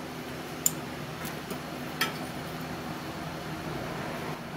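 Steady low hum of workshop background noise, with two light sharp clicks about a second apart as a marker and small tools are handled against the steel tubing.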